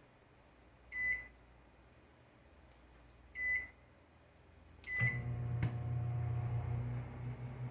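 Microwave oven beeping three times, short high beeps a couple of seconds apart. After the third beep it starts running with a steady low hum and a click.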